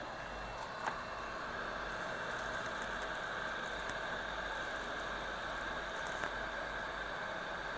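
Hot air rework station blowing steadily while a chip is heated off a laptop logic board, with a few faint small clicks.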